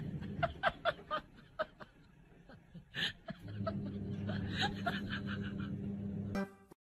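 A person snickering, quiet laughter in short rapid bursts that come in two runs. A steady low hum joins about halfway and cuts off suddenly near the end.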